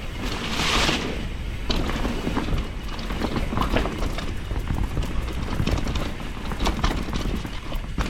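Mountain bike ridden down a rough trail: a constant low rumble of wind buffeting the action-camera microphone, with many knocks and rattles from the bike and tyres over the ground, and a burst of hiss about half a second in.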